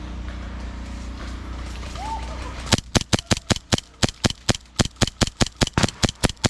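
Airsoft gun firing a rapid string of about twenty single shots, roughly five a second, starting a few seconds in; sharp clicking reports over a low background rumble.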